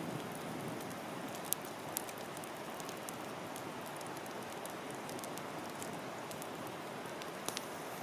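Wood campfire burning with a steady hiss and crackle, with a few sharp pops about a second and a half in, just after, and a pair near the end.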